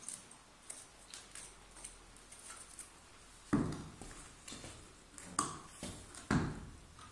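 Stiff grooming brush scraping in short, quick strokes through a black pony's coat, with three louder thumps partway through and near the end.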